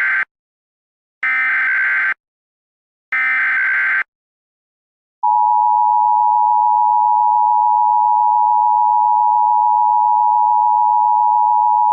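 Emergency Alert System SAME header: the end of one data burst, then two more buzzing data bursts about a second long each, encoding the alert's header. About five seconds in, the steady two-tone EAS attention signal (853 and 960 Hz together) starts and holds.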